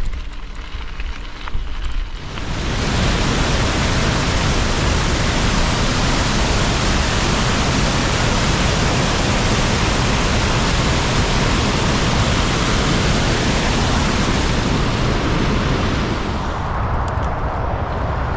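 Water pouring over a canal weir: a loud, steady rush that starts about two and a half seconds in and drops away near the end. Before it, a low rumble of wind on the microphone while riding; after it, a lower rumble of motorway traffic.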